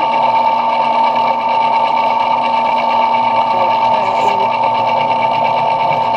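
Belt-driven metal lathe running at steady speed, giving a constant high whine with a busy mechanical whir, as brass knob stock is machined.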